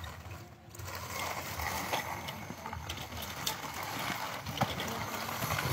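Plastic toy construction vehicles being pushed through loose soil: a scatter of light clicks and scraping over outdoor background noise.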